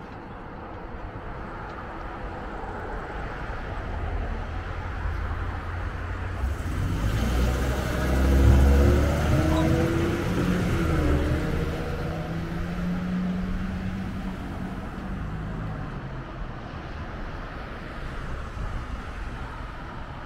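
A heavy pickup truck towing a trailer loaded with a mini excavator drives close past. Its engine and tyre noise build up, peak about eight seconds in, then fade away.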